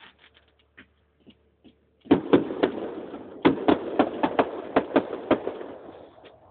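Fireworks going off: a few faint pops, then about two seconds in a rapid run of about a dozen sharp, loud bangs, with echoing rumble between them that dies away near the end.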